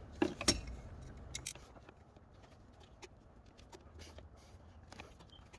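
Light clicks and taps of hoses and metal hose clamps being handled and fitted in an engine bay: two sharper clicks right at the start, then scattered faint ticks.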